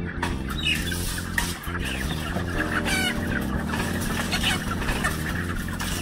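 Caged broiler chickens clucking and calling, with short squawks scattered through, over a steady low hum.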